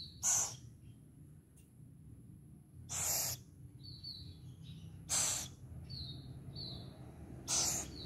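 Owlets calling: four harsh hisses, each under half a second and spaced two to three seconds apart, with short high chirps between them.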